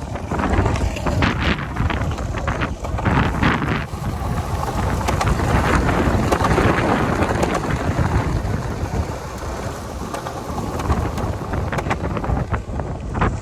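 Strong, gusting wind buffeting the microphone, a loud rumbling roar that swells and eases.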